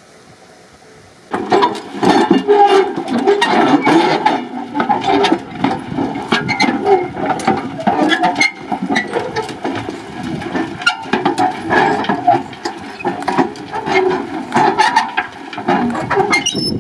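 Horse-drawn packer roller rolling over tilled soil: a steady rumble with constant rattling and knocking from its iron frame and drum, starting suddenly about a second in.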